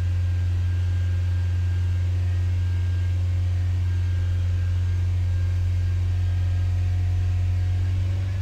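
2012 Honda Accord's four-cylinder engine held steady at a fast idle of about 2500 rpm, a steady low hum; a normal, healthy-running engine.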